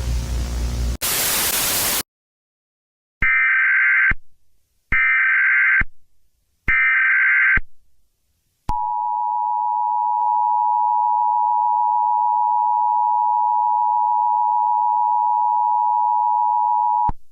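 Emergency Alert System signal: static hiss, then a louder burst of static about a second in, followed by three one-second bursts of the digital SAME header data, then the steady two-tone EAS attention signal held for about eight seconds before cutting off suddenly.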